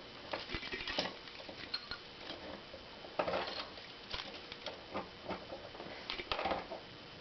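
Keys clinking and rattling in short, irregular clicks and rustles as a key is worked off a key ring by hand.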